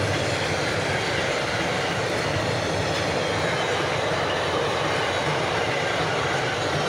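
Loaded double-deck car-carrier freight wagons rolling past on the rails, a steady noise of wheels on track that does not change.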